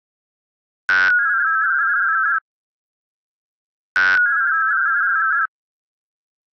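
WINMOR soundcard modem sending connect requests: two bursts of high warbling data tones, each about a second and a half long and starting with a sharp onset, about three seconds apart.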